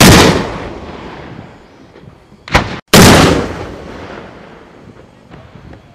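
M3 Carl Gustaf 84mm recoilless rifle firing: two loud blasts about three seconds apart, each dying away in a long rumbling echo over a couple of seconds, with a short sharp burst cut off just before the second.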